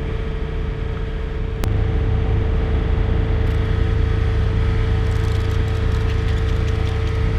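Takeuchi TB145 mini excavator's diesel engine running steadily with a constant whine. A sharp click comes about a second and a half in, and the engine is louder after it; faint light clicks follow near the end.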